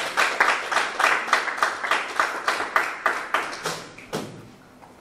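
Audience applause, a run of quick, even claps that dies away about four seconds in.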